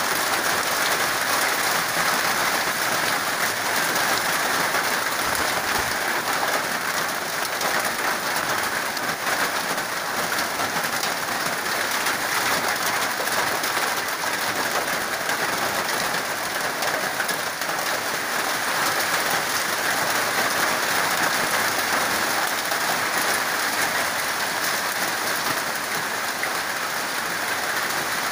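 Steady rain falling, heard from beneath the edge of a corrugated metal roof, an even unbroken hiss with no letup.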